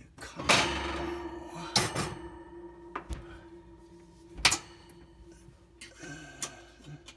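Metal clattering as a flashlight is set down on an oven's wire rack, then a few sharp metallic clicks and knocks, the loudest about four and a half seconds in, as a tool works at the oven light socket's retaining spring clips.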